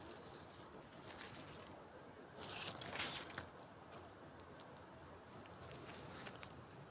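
Close rustling and scraping of fingers among grass blades and gravel right by the microphone, loudest in a burst of crackles about halfway through.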